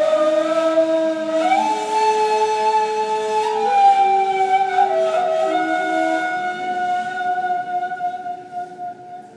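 Two neys (Turkish end-blown reed flutes) playing together in slow, long-held notes, one line above the other, each stepping now and then to a new pitch, with a breathy edge to the tone. The playing dies away near the end.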